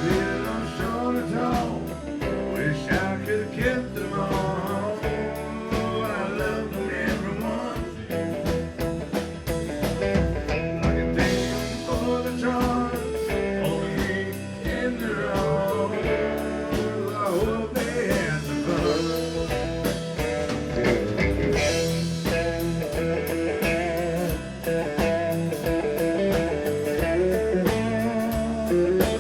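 Live band playing an instrumental break, with a bending lead guitar over bass and drums at a steady beat.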